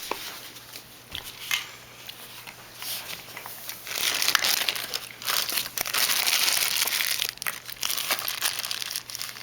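Plastic or foil wrapper crinkling as it is handled, loudest from about four to seven seconds in.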